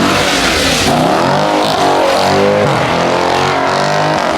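Car engine revving hard, its pitch rising and falling several times.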